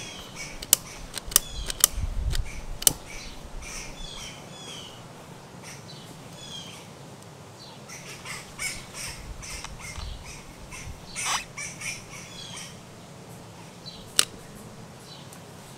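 Sharp clicks of a utility lighter's trigger being pressed to light kindling: four in the first three seconds and one more near the end. Birds chirp and call throughout.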